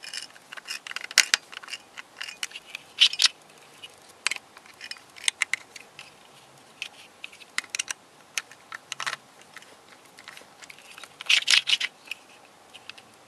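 Small hand screwdriver driving a screw into the plastic core of a Square 2 twisty puzzle, with irregular clicks and short scratchy rasps of metal on plastic as the puzzle pieces are handled.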